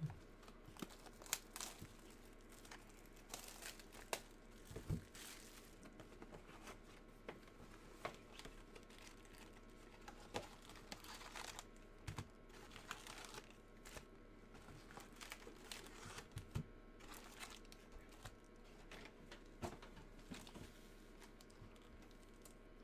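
Faint crinkling and tearing of a trading-card box's plastic wrap being cut open with a blade and pulled off, with scattered light clicks and rustles.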